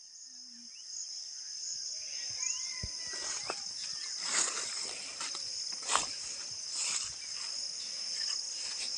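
Steady high-pitched chirring of insects, with the rustling and brushing of leafy undergrowth as a person moves and searches through it, a few louder rustles between about three and seven seconds in.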